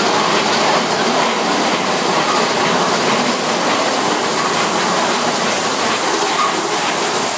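Big Thunder Mountain Railroad's mine-train roller coaster running on its track: a steady, loud noise of wheels on rails.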